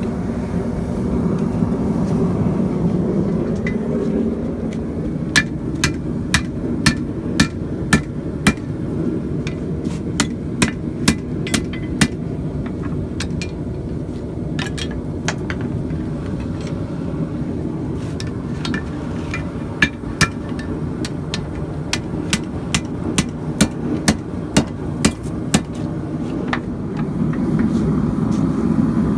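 Hand hammer striking a piece of coil spring to straighten it. There are two runs of sharp ringing strikes, about two a second, starting about five seconds in and about twenty seconds in, over a steady low roar.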